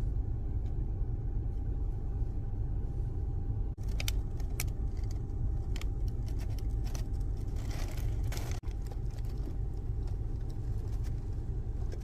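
Steady low rumble of a car cabin with the engine running, with bursts of crinkling and rustling from fast-food wrappers and packaging being handled, about four seconds in and again around eight seconds.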